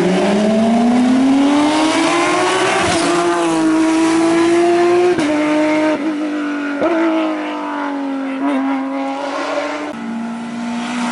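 Race car engine accelerating hard at full revs, its pitch climbing steadily for about three seconds, then several upshifts, each a sudden drop in pitch. Near the end another car's engine comes in at a steady pitch.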